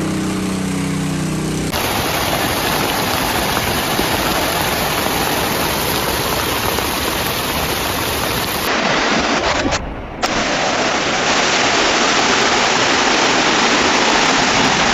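Loud, steady rush of water from storm flooding, broken by abrupt changes about 2 and 9 seconds in and a brief drop near 10 seconds. A low hum with steady tones sits under the first couple of seconds.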